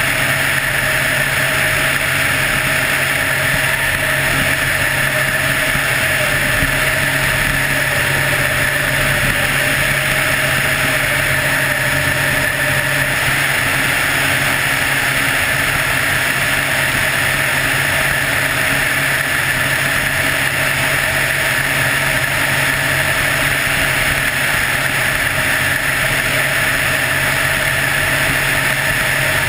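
Helicopter in flight: a steady engine whine and rotor noise, unchanging in level.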